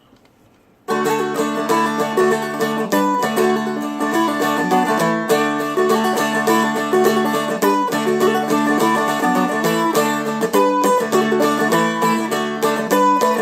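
Seagull Merlin, a fretted dulcimer-type instrument, being flatpicked in a quick Celtic jig-style tune over steadily ringing drone strings. The playing starts suddenly about a second in.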